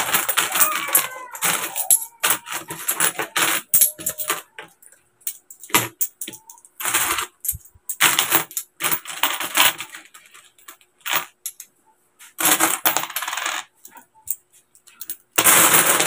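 A heap of metal coins clinking and jingling on a tabletop as handfuls are raked, slid and picked through by hand during counting. The jingling comes in bunches of a second or more, with single clicks of one coin striking another in the pauses.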